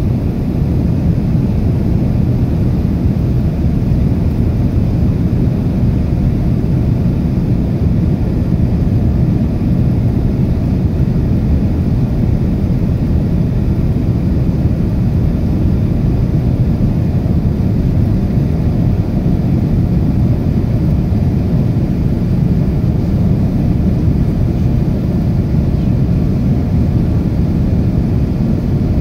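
Steady low rumble of a Boeing 787-9's Rolls-Royce Trent 1000 turbofan engines and rushing air, heard inside the passenger cabin during the climb after takeoff.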